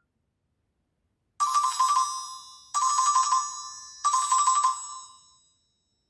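Nokia C5-00 ringtone: a short, bright electronic melodic phrase played three times, each start about a second and a quarter after the last, beginning about a second and a half in. Each repeat rings out and fades, and the last dies away near the end.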